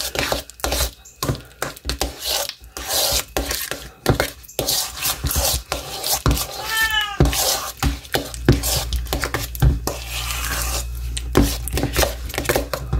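A utensil scraping and pressing softened cream cheese against the sides of a stainless steel mixing bowl, in quick irregular strokes, as the cream cheese is creamed. A cat meows once about seven seconds in.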